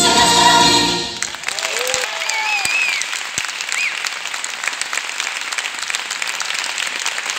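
A stage musical number with group singing ends about a second in, and an audience breaks into applause, with a few cheering whoops early in the clapping.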